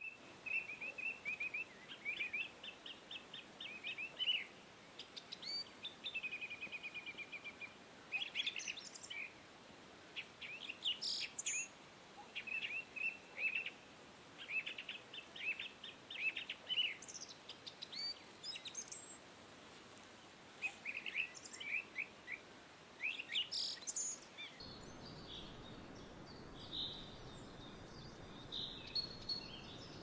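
Birds calling in short, repeated chirps and quick trills over faint outdoor background noise. Near the end the sound cuts to a quieter outdoor background with only a few faint high chirps.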